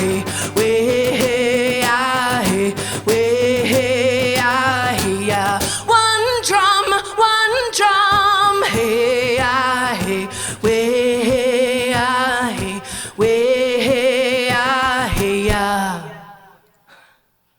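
Live music with wordless sung vocals, the held notes wavering with vibrato over sparse backing. The music fades away to silence near the end.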